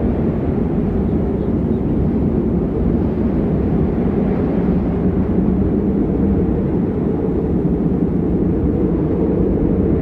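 Steady, low rumbling wind: a snowstorm ambience sound effect, without gusts or breaks.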